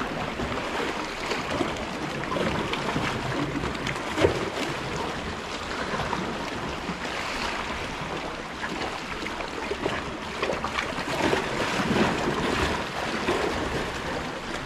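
Seawater washing and splashing in a steady rush, with a single sharp click about four seconds in.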